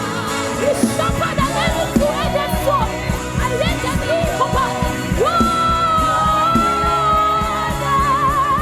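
Live gospel worship music: a singer with a band, the voice held on one long note about five seconds in and wavering with vibrato near the end, over sustained keyboard chords and a steady beat.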